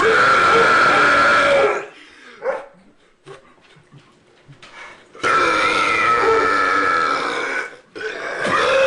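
Long, drawn-out human burps forced out on purpose: one of nearly two seconds, a pause, a second of about two and a half seconds, and a third starting just before the end.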